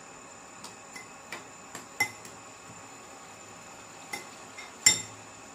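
Metal spoon clinking and scraping against a glass bowl while stirring chopped raw vegetables: irregular clinks, the loudest a sharp knock near the end.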